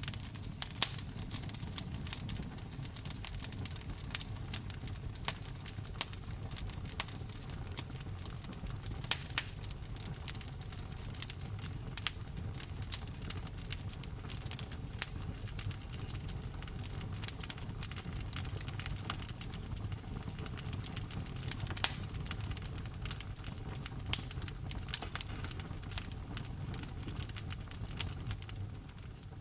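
Wood fire burning in a fireplace: constant crackling with many small sharp pops and a few louder snaps, over a steady low rumble of the flames.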